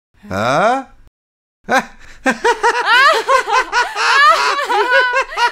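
A short falling voice-like glide, then high-pitched giggling in quick rapid pulses from about two seconds in.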